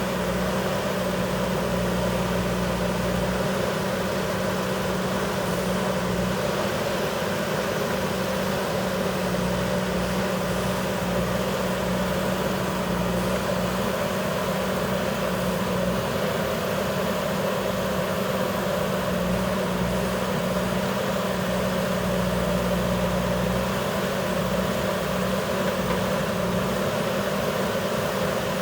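Diesel engine of a JCB backhoe loader running steadily.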